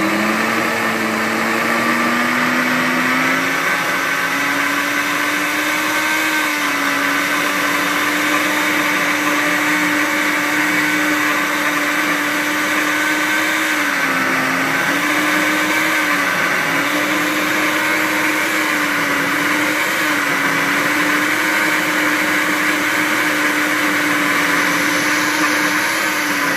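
Ninja Chef countertop blender running its flour/mill program, grinding dry rolled oats into fine flour: a loud, steady motor sound whose pitch rises over the first few seconds and dips briefly a few times in the middle. It cuts off suddenly at the end as the program finishes.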